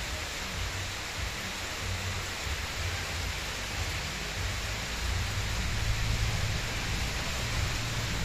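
Heavy rain falling steadily, an even hiss, with a low rumble underneath that grows louder about five seconds in.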